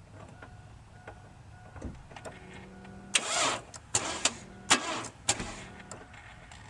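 A 2001 Chevy Blazer's starter being tried with a dead battery: a few faint clicks, then about five short bursts between three and five and a half seconds in, with no engine catching.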